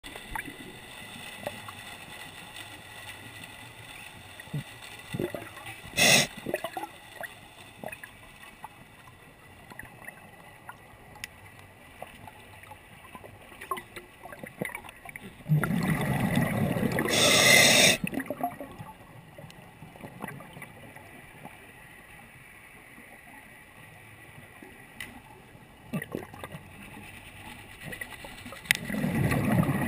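Underwater sound of a scuba dive: a low steady hiss with scattered clicks and ticks, broken twice by a loud rush of scuba regulator exhaust bubbles, each about two to three seconds long, halfway through and again near the end.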